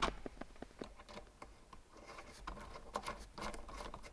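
Small metal clicks and light scraping of dash-3 AN brake lines and their fittings being worked by hand through drilled holes in the floor, a scatter of faint ticks.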